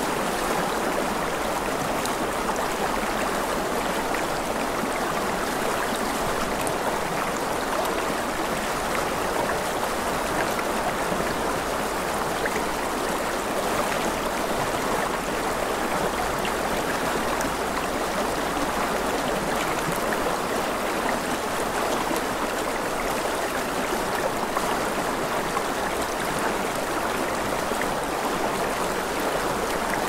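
Stream flowing over rocks: a steady, even rush of running water.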